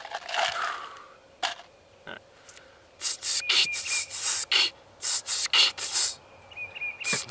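Beatboxing: a string of short, sharp hissing hi-hat sounds made with the mouth in an uneven rhythm, starting about three seconds in and stopping about a second before the end.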